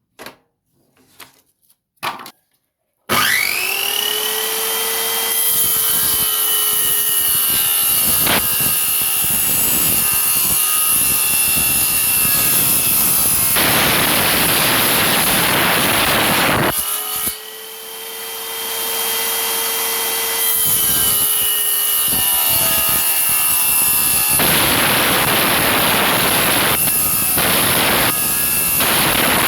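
A few light clicks, then a table saw built from a 7-inch circular saw with a 24-tooth blade switches on, its whine rising and settling into a steady high run. It cuts through a workpiece twice, each cut a few seconds of harsh rasping over the whine, and between the cuts it briefly dips and spins up again.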